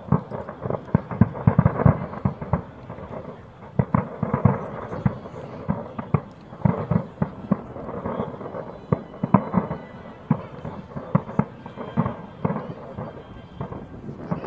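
Fireworks display: many aerial shells bursting in quick, irregular succession, at times several bangs a second.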